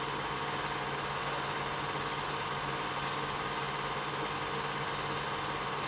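Super-8 film projector running with a steady mechanical whir.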